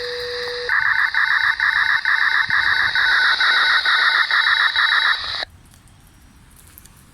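Analog municipal disaster-prevention radio (bōsai musen) transmission heard through a scanner receiver. A steady beep tone is followed, under a second in, by a fast pulsing signal alternating between two pitches about four to five times a second: the control signalling at the close of the broadcast. About five seconds in, the transmission cuts off abruptly to faint hiss as the carrier drops.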